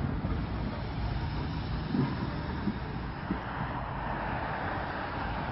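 Small saddle-tank steam locomotive running light and moving slowly away: a steady low rumble with a few soft, irregular low thumps.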